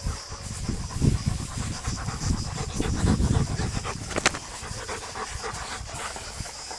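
Weimaraner dogs panting in quick, uneven puffs, with one sharp click about four seconds in.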